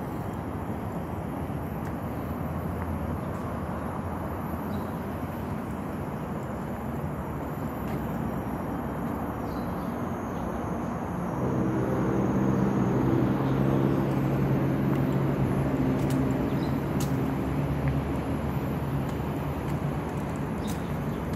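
Steady road traffic noise, with a low engine hum that comes in about halfway through and holds for several seconds, louder than the rest.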